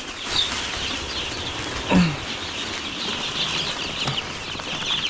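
A brooder full of day-old meat chicks peeping continuously, many high chirps overlapping, with a single short knock about two seconds in.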